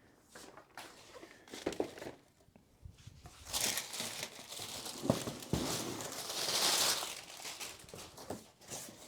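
Packaging crinkling and rustling as boxed figures are unpacked, with a few light knocks, the rustling starting about a third of the way in and growing loudest near the end.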